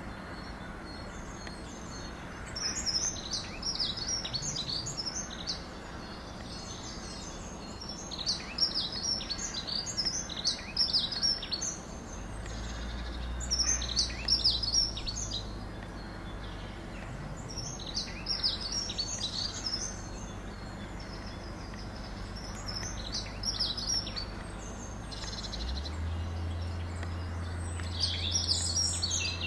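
Songbirds singing in short bursts of quick, high, falling notes every few seconds. A low steady hum comes in partway through and grows a little louder near the end.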